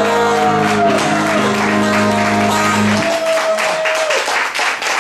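The final chord of a live acoustic-guitar band rings out under a long held sung note. The chord stops about three seconds in, one last sung note holds for about another second, and the audience starts clapping.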